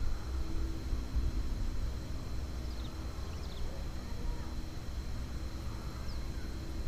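Outdoor background at the pilot's spot: an unsteady low rumble with a faint steady hum, and a few short, faint high chirps, a cluster about three seconds in and one more near the end.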